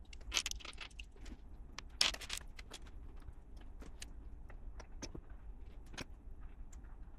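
Plastic LEGO pieces clicking and rattling as they are handled, a scatter of small irregular clicks, with louder rattles about half a second in and about two seconds in.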